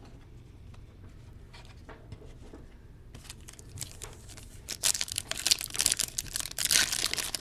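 A football card pack's wrapper being torn open and crinkled, with a few light clicks of cards being handled first. The crackling begins about three seconds in and grows much louder near the five-second mark.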